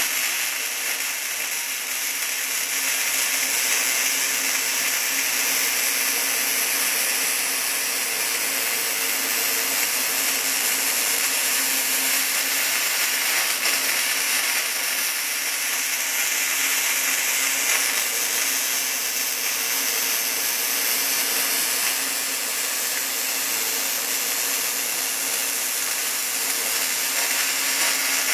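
MIG welding arc in short-circuit transfer, .035 E70S-3 wire at 17.6 volts under 75/25 argon-CO2 gas, sizzling steadily as a Boa308i borewelder lays a bead inside a 1 5/8-inch bore.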